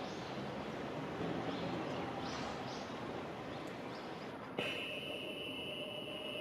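Outdoor background hiss with a few short, high calls from small birds in the first three seconds. About two-thirds of the way through, a click is followed by a steady high-pitched whine.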